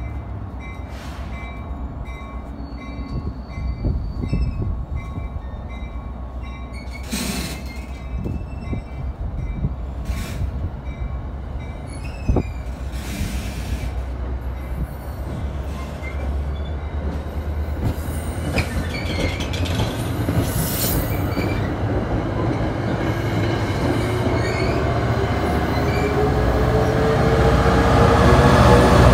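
Passenger train rolling past along the station track: a steady low rumble of wheels with a few short squeals and clicks. Near the end the NJ Transit PL42AC diesel locomotive at the rear comes past, louder, with a whine that rises in pitch as the train picks up speed.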